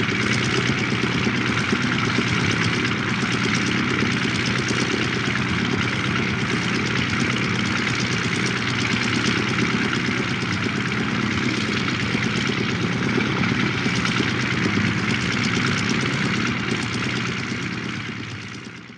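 Fokker Dr.I triplane's engine idling steadily on the ground with its propeller turning, fading out over the last two seconds.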